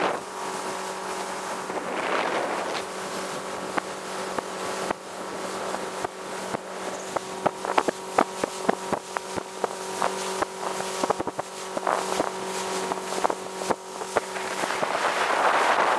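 100 bhp speedboat running at speed: a steady engine drone under the rush of water and wind. Many sharp slaps of the hull on the chop come through the middle, and the noise swells near the end.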